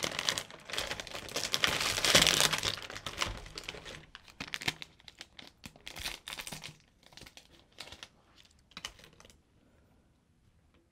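Foil-lined plastic snack bag being opened and crinkled, loudest about two seconds in, then lighter rustles and clicks as a cookie is taken out, dying away near the end.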